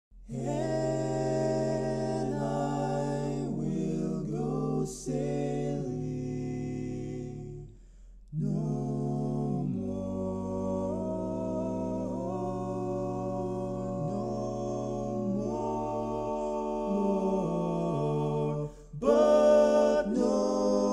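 A cappella barbershop voices singing in close four-part harmony. The chords are long and held, there is a short break about eight seconds in, and the singing grows louder near the end.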